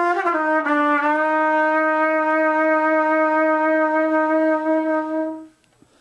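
Trumpet played with jaw vibrato: a few short notes, then one long held note with a slight pitch wobble that stops about five and a half seconds in.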